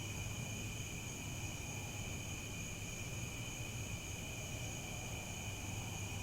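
Crickets chirping in a continuous chorus: a steady, unbroken high trill made of several overlapping pitches, over a low steady rumble.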